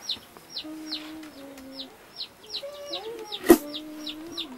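Chicks peeping in a rapid run of short, high, falling chirps, about three or four a second, over a low held hum. One sharp, loud knock or clink comes about three and a half seconds in.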